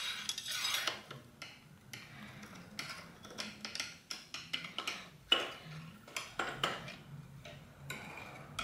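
Scattered light metallic clicks and clinks of a hand driver turning a bolt deep inside a bicycle suspension fork leg, the long tool knocking against the metal tube.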